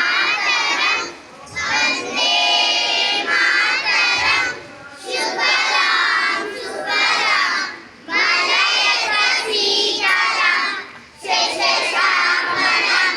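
Many children's voices together in unison, loud and high, in short phrases of a second or two with brief pauses between them.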